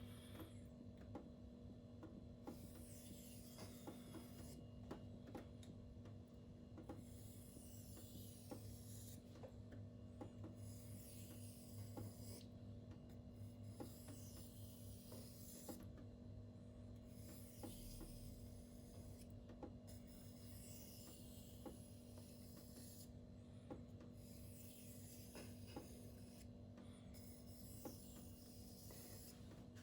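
Spyderco Tenacious's 8Cr13MoV steel blade being stroked freehand across a silicon carbide whetstone. The faint scraping comes in passes of about two seconds with short pauses between them.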